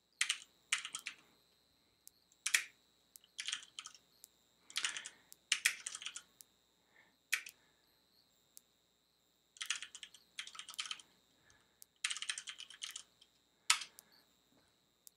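Typing on a computer keyboard: runs of quick keystrokes with short pauses between them, as a terminal command is typed out and entered, with a few single louder key presses.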